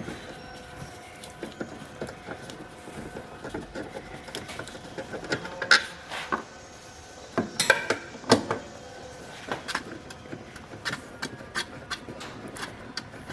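Scattered light clicks and a few louder metallic clatters of a screwdriver and small screws being handled while the cover screws come off a refrigerator control board.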